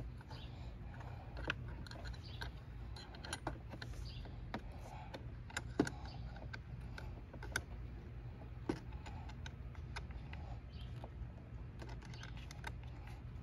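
Irregular metallic clicks and clinks of hand tools working on a car battery's terminal and hold-down fastenings, the sharpest about six seconds in, over a steady low hum.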